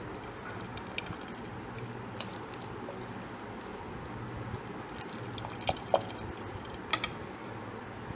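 Steel ladle stirring and scooping wet boiled rice in a metal pot: soft squelching with scattered sharp clicks of the ladle against the pot, the two loudest about six and seven seconds in. A steady low hum runs underneath.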